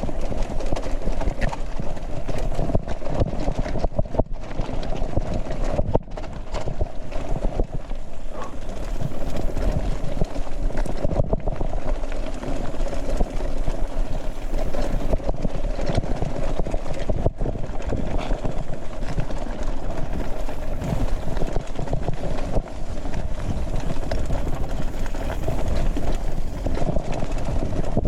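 Mountain bike descending at speed over rough ground, the frame and parts rattling and knocking without a break over a steady rushing noise.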